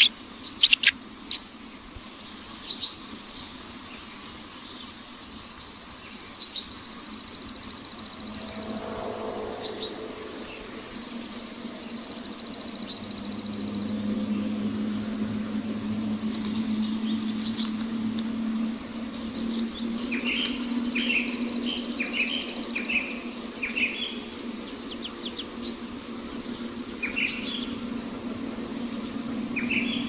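Continuous high-pitched insect trill, pulsing rapidly and shifting slightly in pitch. From about two-thirds of the way in come clusters of short high cheeps from the nestlings begging.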